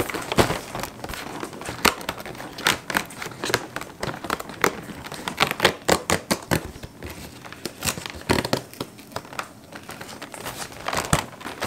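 Stiff cardboard of an advent calendar door being torn open by hand, with crinkling and crackling of packaging as it is pulled apart in irregular bursts.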